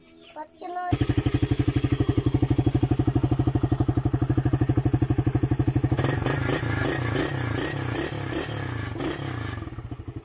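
Suzuki Raider 150 carburettor model's single-cylinder four-stroke engine starting about a second in, then idling with a fast, even exhaust pulse from its stock muffler. From about six seconds in a rattly clatter joins the idle.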